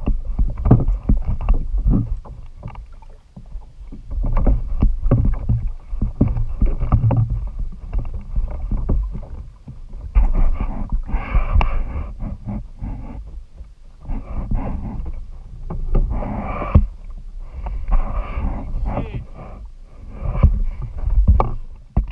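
Water sloshing and slapping around a plastic fishing kayak, with many irregular knocks and thumps against the hull as a large kingfish is handled aboard. Louder bursts of splashing come in the middle stretch.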